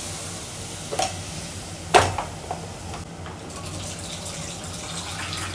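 Water pouring into a cooking pot of fried spice paste for a broth, with a light knock about a second in and a sharper clank a second later.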